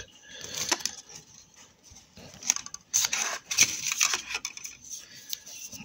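Hands handling unboxing packaging: cardboard and plastic rustling, with a few light clicks and knocks, busiest about three to four seconds in.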